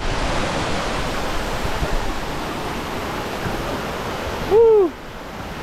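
Steady rush of falling water from a waterfall. About four and a half seconds in comes a single short pitched call that rises and falls, the loudest sound here.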